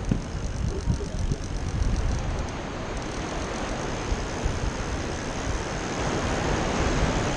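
Wind buffeting the microphone: a gusty low rumble over the wash of the sea.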